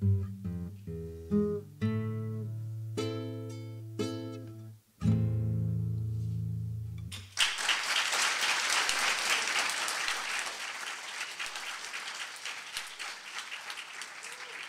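Solo acoustic guitar playing the closing phrases of a piece, ending on a strummed final chord that rings for about two seconds; about seven seconds in, the audience breaks into applause that continues to the end.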